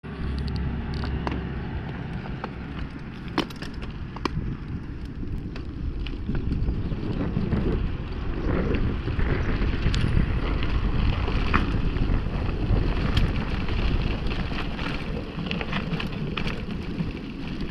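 Mountain bike rolling downhill on a loose gravel and dirt road, with steady wind noise on the camera microphone and tyre noise over the stones. Many short clicks and rattles from stones and the bike are scattered throughout.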